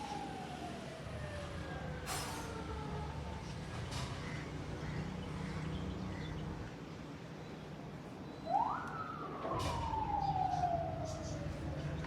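A siren wailing twice, each wail falling slowly in pitch: the first fades away in the first three seconds, the second rises sharply about eight and a half seconds in and then falls to the end. A low steady hum and a few sharp clicks lie underneath.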